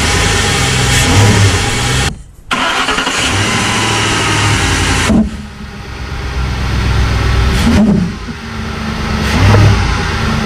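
Ford F-150 4.6L V8 engine running and being revved several times, at first with worn engine mounts and a harsh, rattly noise over the engine sound. After a cut about five seconds in, the same engine is revved on new mounts and sounds much smoother and quieter.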